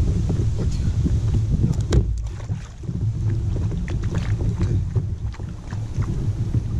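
Wind buffeting the microphone as a steady low rumble, with scattered light knocks and taps from the inflatable kayak and the gear in it, the strongest about two seconds in.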